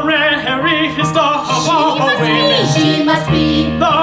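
Operatic singing with wide vibrato over piano accompaniment.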